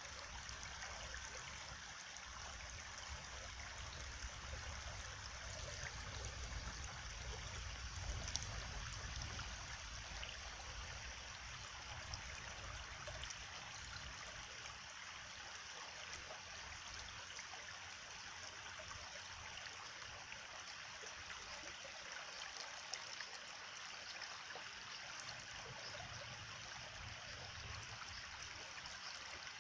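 A stream flowing and trickling steadily.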